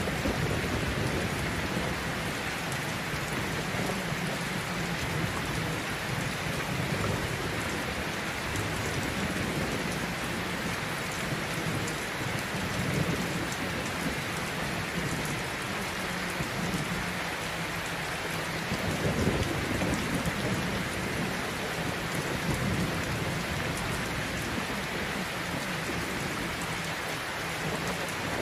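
Steady heavy rain with low rolling rumbles of thunder swelling now and then, the strongest about two-thirds of the way through: a rainstorm track of the kind used to mask subliminal affirmations.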